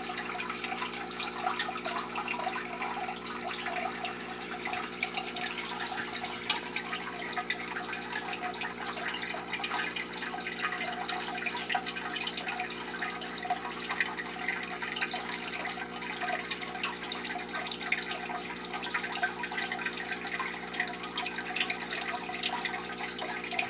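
Aquarium aeration: air bubbles rising and breaking at the water surface in a steady, fine trickle of small splashes and drips, over a steady low hum.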